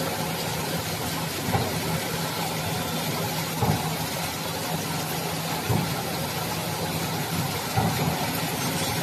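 Steady motor hum of an automatic fruit-caviar production machine running, a low even drone with a soft knock about every two seconds.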